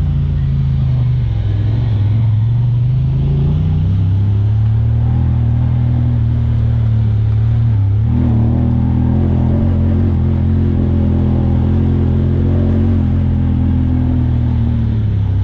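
Honda Talon 1000R side-by-side's parallel-twin engine running under load on a trail. Its pitch sags and recovers in the first few seconds, then steps up about halfway through and holds steady.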